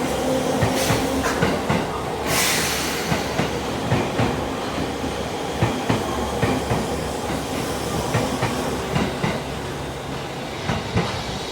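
Seibu Line electric train passing through a level crossing, its wheels clacking over the rail joints in a long run of sharp, uneven clicks, with a brief hiss about two seconds in.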